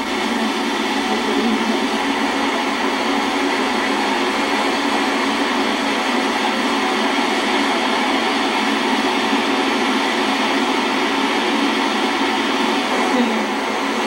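Waterfall and its stream rushing: a loud, steady, unbroken noise of falling and churning water.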